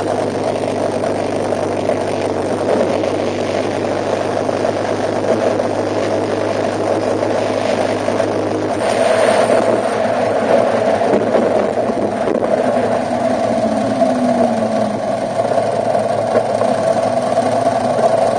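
A car running: steady engine and road noise, with a low steady hum that drops away about nine seconds in.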